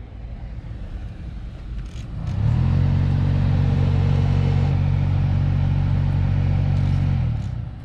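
2015 Honda Civic heater/AC blower motor running. A fainter rush of air comes first; about two seconds in a loud, steady low droning vibration sets in and holds, then cuts off shortly before the end. This is the thumping vibration of a blower wheel knocked off balance by leaves and paper towel caught in it.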